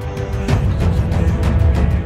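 Background music with a steady fast beat of about four hits a second, which gets louder about half a second in.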